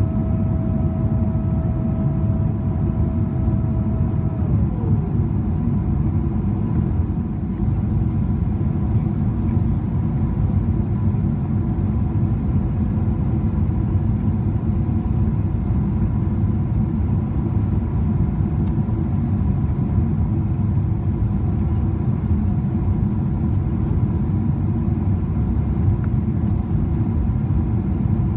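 In-flight cabin noise of a Boeing 777-300ER heard from a window seat beside the wing: a steady, deep roar of airflow and GE90 engines. A thin whine slides down in pitch and fades out about four seconds in, while a fainter steady whine carries on.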